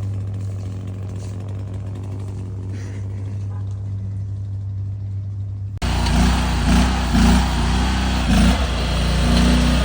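An engine runs steadily with a low hum. About six seconds in, an abrupt cut brings in a louder engine whose speed rises and falls repeatedly, as if being worked under load.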